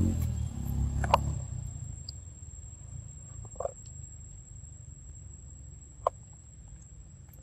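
A low engine rumble, typical of a passing motor vehicle, fades away over the first two seconds. Sharp taps or clicks come about a second in and again about six seconds in, over a thin steady high-pitched whine.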